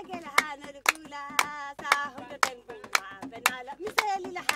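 Women clapping their hands in a steady rhythm, about two claps a second, while singing.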